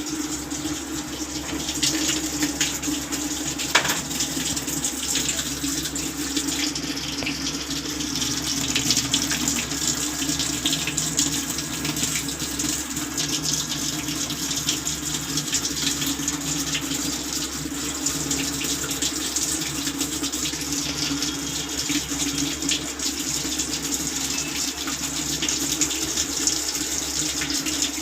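Water running steadily into a Midea 6.5 kg washing machine as it fills, with a low hum under it. The fill does not stop at the set level, the overflow fault blamed on a bent water-level pressure pipe.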